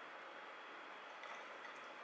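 Quiet room tone: a steady faint hiss, with a few faint small ticks a little past the middle.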